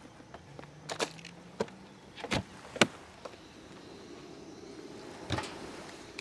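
Igloo hard-sided cooler lid being shut: a few light knocks, then two heavy thumps a little before halfway through, the second the loudest, and one more knock near the end.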